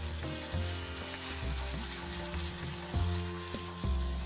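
Onion-and-spice masala with a little added water sizzling in a kadhai over high heat, while a metal spatula stirs and scrapes against the pan, with a few short knocks.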